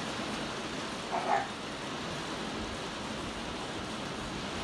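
Heavy rain pouring down in a steady hiss. About a second in there is one brief high-pitched squeak.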